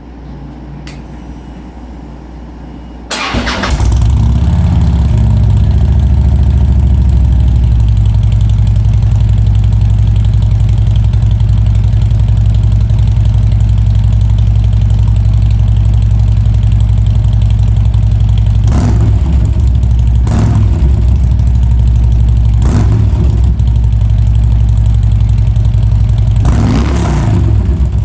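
Harley-Davidson 103 Twin Cam V-twin, stage 1 with TAB Performance 50 Cal slip-on mufflers, catching and starting about three seconds in. It settles from a fast idle into a loud, lumpy idle and is blipped four times in the second half.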